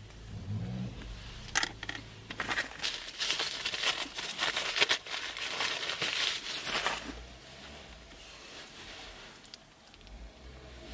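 Paper napkin crinkled and torn open to free a plastic fork: a dense run of crackling and rustling lasting about five seconds, then it quietens down.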